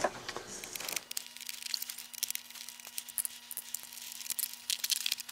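Hands working on the plastic casing of HeadPlay FPV goggles, making scattered small clicks, scrapes and rustles, over a faint steady hum.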